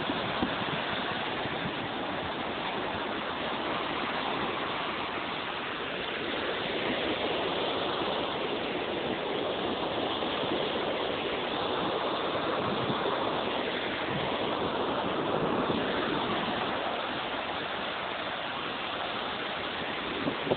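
Small waves breaking and washing onto a beach: a steady hiss of surf that swells and eases every few seconds.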